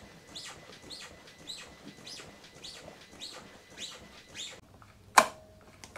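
BMW GS motorcycle's suspension squeaking as a rider bounces on it: short faint squeaks, each rising in pitch, a little under two a second. About five seconds in, a single loud sharp click with a brief ringing tone.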